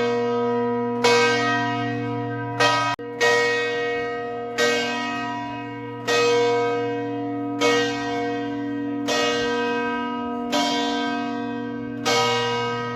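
A large church bell of St Mark's Campanile tolling. It is struck about every one and a half seconds, and each stroke hums on into the next.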